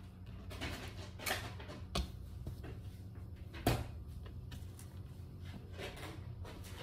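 Hands working at a Fluffie Stuffiez plush toy, pulling out its fluff: faint rustling with two light knocks, the second, a little past halfway, the louder, over a steady low hum.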